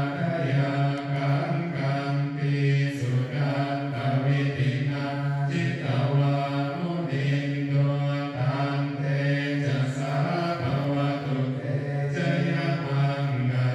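Buddhist chanting: low voices reciting in a steady monotone, the pitch held nearly level with small shifts and brief breaths.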